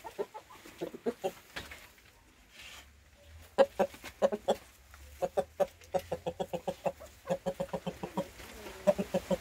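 Chickens clucking: a rapid run of short calls, several a second, sparse at first and busiest from about three and a half seconds in.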